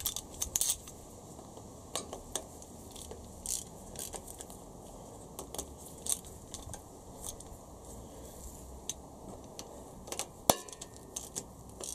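Scattered light metallic clicks and clinks of a socket tool and the 10mm bolts as the VTEC solenoid is bolted onto the aluminium cylinder head of a Honda B18C4 engine, with one sharper click about ten and a half seconds in.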